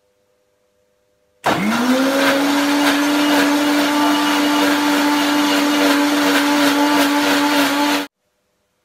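Electric mixer grinder switched on about one and a half seconds in, its motor spinning up quickly and then running loud and steady while it blends carrot pieces with water in a steel juicer jar. It cuts off suddenly about eight seconds in.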